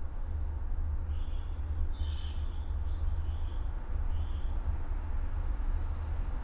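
Suburban morning ambience: a steady low rumble under scattered short bird calls and chirps, with one louder, busier call about two seconds in.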